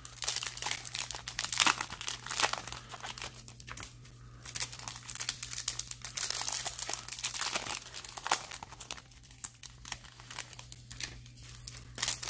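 Foil wrapper of a Bowman baseball card pack crinkling and tearing as it is opened by hand, in irregular crackling rustles that are busiest in the first two seconds and again around five to seven seconds in.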